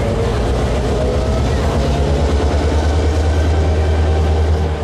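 EMD CF7 diesel-electric locomotive, with its 16-cylinder EMD 567 two-stroke diesel, pulling away with a deep pulsing engine note that grows stronger about two seconds in as it throttles up.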